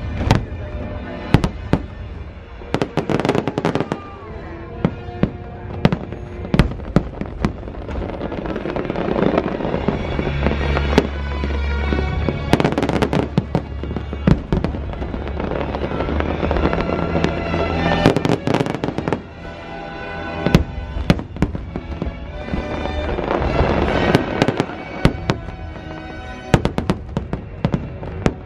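Fireworks shells bursting overhead, many sharp bangs and crackling bursts in clusters, over continuous show music from loudspeakers. A deep low rumble swells through the middle.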